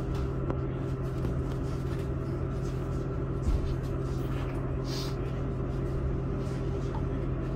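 Bombardier Talent 2 (BR 442) electric multiple unit running, heard from inside the train: a steady rumble under a constant hum of several steady tones. There is a low thump about three and a half seconds in and a short hiss about five seconds in.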